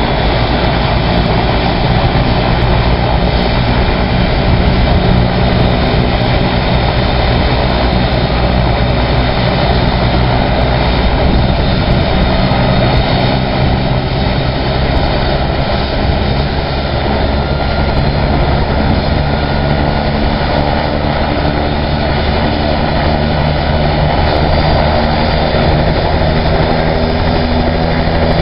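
Bell 206 JetRanger helicopter's turbine engine running on the ground as its two-blade main rotor spins up to speed before take-off: a loud, steady engine and rotor sound.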